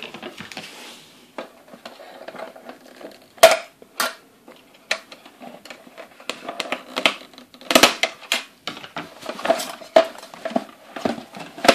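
Scissors snipping the thin wires that hold a plastic toy dump truck to its cardboard packaging, with the toy and cardboard knocking and rattling as it is freed. The sound is a string of irregular sharp clicks, the loudest about three and a half seconds in and again near eight seconds.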